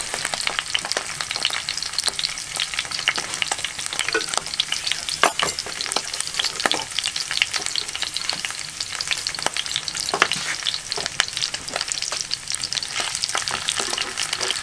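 Pork kupaty sausages frying in hot oil in a frying pan: a steady sizzle full of dense crackling pops.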